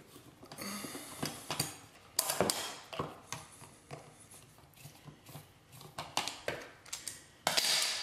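Flathead screwdriver turning out the centre screw of an electrical outlet's cover plate: irregular small clicks and scrapes of the metal tip in the screw slot, with a louder scraping noise near the end.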